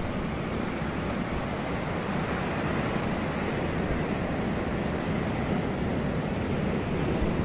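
Ocean surf: a steady, even rush of waves washing in.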